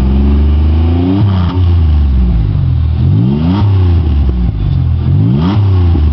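Pontiac Grand Am's engine revved in place through a Flowmaster muffler. The exhaust rises in pitch and falls back three times, peaking about a second in, halfway through and near the end.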